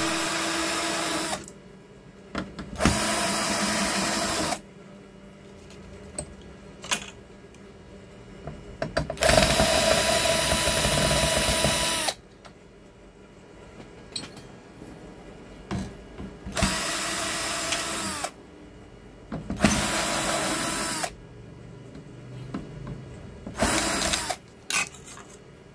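Cordless drill-driver unscrewing the fixing screws of a TV's power board and its sheet-metal bracket, in about six short runs of motor whine. The runs last from about half a second to three seconds, and the pitch drops as the motor winds down at the end of several of them. Light clicks of screws and handling come between the runs.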